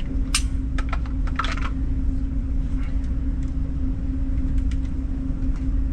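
Sharp metal clicks and clacks of a Glock 19 pistol being taken apart by hand to swap its barrel, a quick cluster in the first couple of seconds and a few lighter clicks later. Under them runs a steady low hum with a constant tone.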